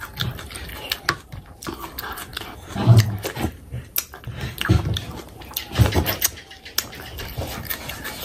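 Close-miked eating of fish curry and rice: wet mouth clicks and smacking throughout, with three low throaty sounds about 3, 4.5 and 6 seconds in.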